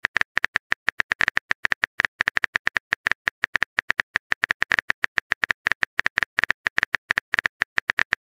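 Keyboard-tap sound effect of a texting-story app, clicking once per typed letter in a rapid, even run of about nine or ten clicks a second.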